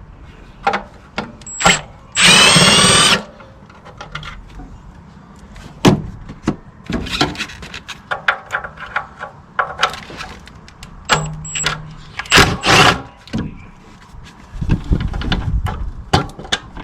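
A power ratchet's motor whirring in short runs to loosen bolts: one spin of about a second, then a second pair of brief spins later. Tool clicks and metal clinks fall between the runs.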